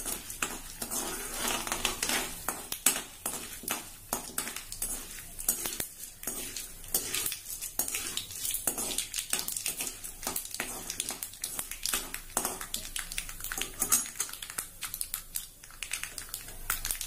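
Mustard seeds popping and crackling in hot sesame oil in a tempering pan: a dense, irregular run of sharp little pops.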